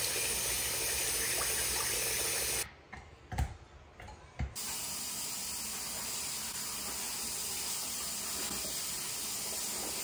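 Bathroom faucet running water into the sink basin. It breaks off briefly about three seconds in, with two knocks, then runs steadily again while a cloth is rinsed under the stream.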